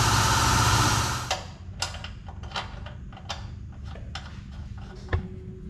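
A steady rushing noise cuts off about a second in. It is followed by irregular light metallic clicks and taps as the oil drain plug is put back into the race car's oil pan.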